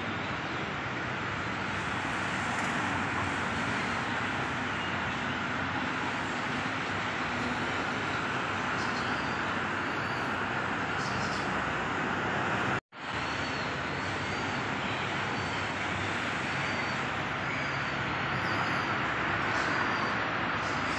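Steady rushing traffic noise with a Sentosa Express monorail train running along its elevated track, broken once by a sudden, very short dropout about 13 seconds in.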